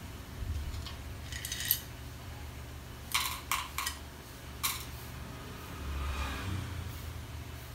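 Small metal tools and parts clinking and tapping against each other, about five short sharp clinks in a cluster near the middle, over a steady low hum.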